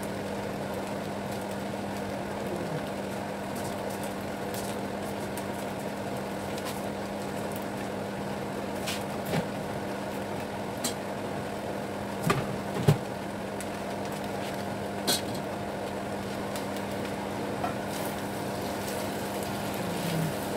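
Flat rice noodles (kway teow) frying in a nonstick pan, with scattered crackles and pops over a steady hum, and a few sharper pops past the middle.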